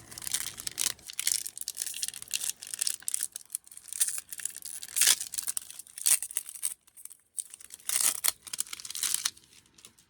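Pokémon card booster pack wrappers being torn open and crinkled by hand, in a run of sharp rustling bursts that stop about nine seconds in.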